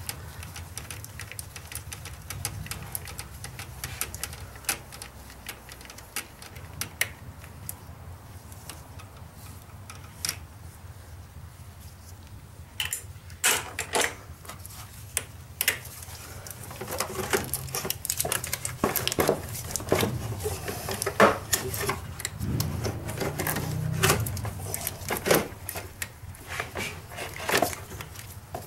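Scattered clicks, clinks and knocks of hands and tools on metal as an alternator is worked loose and lifted out of a GMC Envoy's engine bay. The clicking is sparse at first and gets much busier about halfway through.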